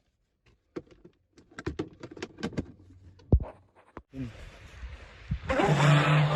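A string of sharp clicks and knocks. Then, from about five and a half seconds in, a loud rushing run with a steady low hum and higher whining tones that fall in pitch: the Proboat SonicWake RC boat's 8S electric drive running.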